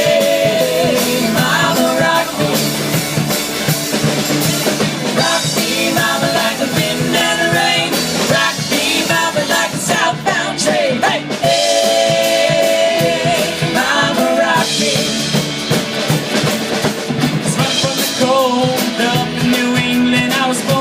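Country-rock band playing an instrumental break between chorus and verse, with drum kit, guitar and a held lead melody line.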